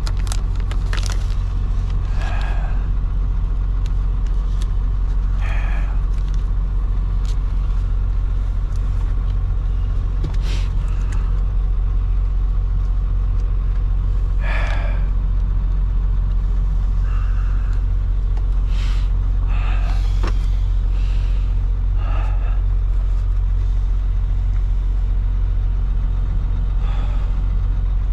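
Semi-truck diesel engine idling steadily, a low, unchanging rumble, with a few brief knocks and rustles over it every few seconds.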